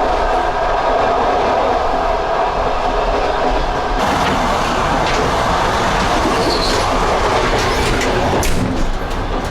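Moving passenger train heard from inside a carriage: a steady rumble and rattle of the car and its wheels on the rails. About four seconds in the noise turns brighter and stronger, and there is a sharp click near the end.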